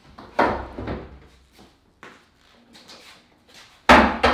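Plywood tool-cart box being lifted off the bench and turned over: a knock about half a second in and light clicks, then a heavy double thud near the end as it is set down on its swivel casters on the floor.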